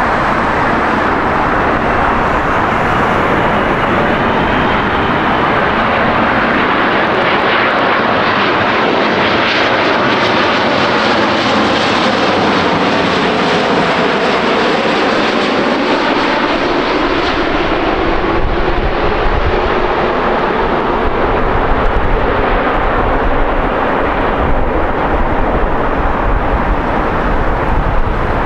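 Jet airliner passing close, its engine roar swelling to a peak about halfway through and then fading, with whining tones sliding down in pitch as it goes by.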